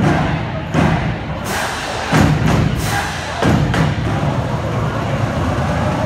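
A steady beat of heavy thumps, roughly one every three quarters of a second, over a loud continuous din with music.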